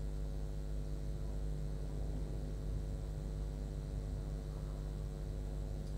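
Steady drone of distant jet engines from BAE Hawk jets on the ground, a constant hum of several tones over a low rumble.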